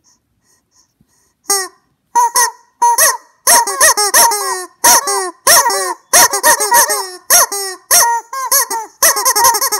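Rubber chicken toy squawking again and again, each squawk a short honk that bends in pitch, in a quick beat like a tune. It starts about a second and a half in, with about two squawks a second, crowding closer together near the end.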